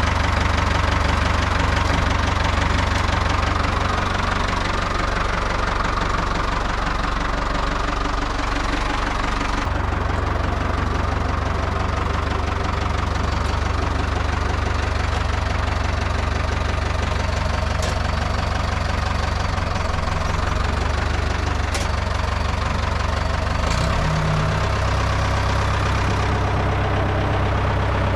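Ford 5000 tractor engine running steadily, its low note shifting slightly about a third of the way through, with a few brief sharp clicks in the second half.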